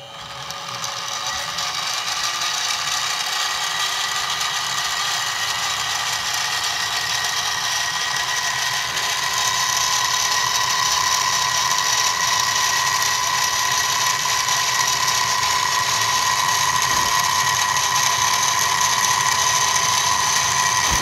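Harbor Freight mini milling machine running, its 1/8-inch end mill taking a pass through aluminium: a steady motor whine with several high tones over the noise of the cut. It builds up over the first couple of seconds and gets a little louder from about ten seconds in.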